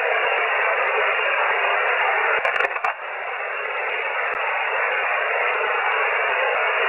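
Amateur HF radio receiver hiss between transmissions: steady band noise through the narrow voice passband. A few crackling clicks come about two and a half seconds in, after which the hiss dips and slowly rises back.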